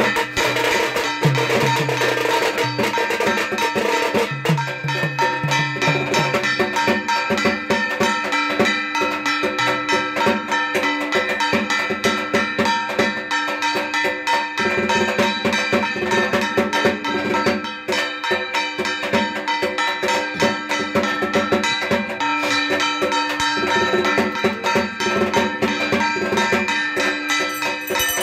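Fast rhythmic percussion: steady drumming with clanging metal strikes and ringing tones over it.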